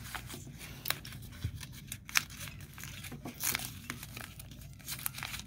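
Small paper blind bag being picked and torn open by hand: irregular paper crinkles and small tearing crackles.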